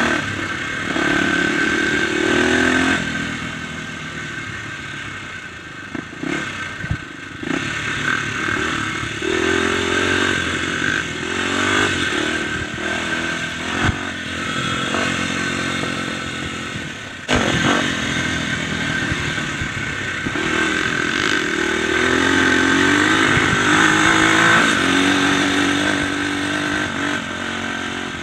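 Dirt bike engine running under way, its note climbing several times as it accelerates through the gears, with the clatter of the bike over rough ground and a few sharp knocks from bumps.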